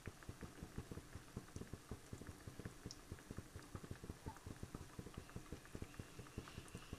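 Shakarpare dough pieces deep-frying in hot ghee in a steel kadhai: faint, rapid, irregular bubbling and popping.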